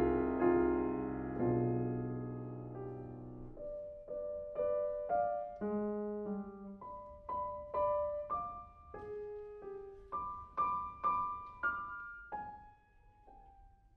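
Fazioli grand piano played solo: loud chords ring and slowly die away, then a quieter passage of single notes and light chords struck about twice a second, closing on a last note that fades out about a second before the end.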